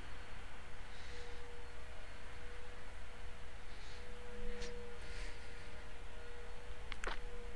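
Faint rustling and crinkling of a folded, taped paper airplane being handled and pinched, with a few sharp crinkles near the end, over a steady faint electrical tone and hiss.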